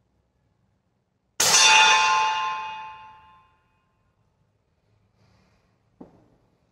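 A single EVO10 air pistol shot about a second and a half in: a sudden sharp report followed by a metallic ringing that fades away over about two seconds. Near the end, a short knock as the pistol is set down on the bench.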